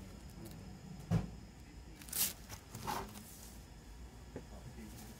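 A shrink-wrapped plastic CD jewel case being handled and turned over by hand: a dull knock about a second in, then two short crinkly scrapes of the wrapped plastic a little after two and three seconds in.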